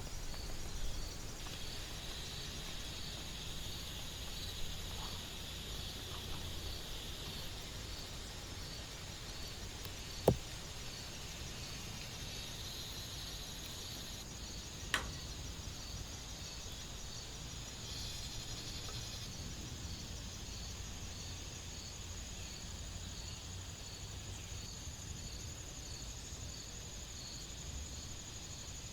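Night insects, likely crickets, calling: a steady high trill with a short chirp repeating about every three-quarters of a second, over a soft steady hiss. Two sharp ticks, about ten and fifteen seconds in.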